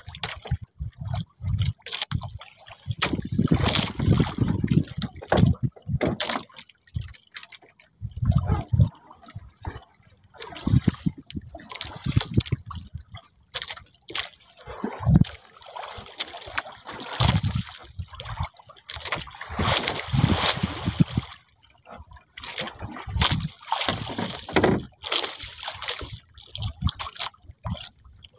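Water splashing and sloshing in irregular bursts, with some low thumps.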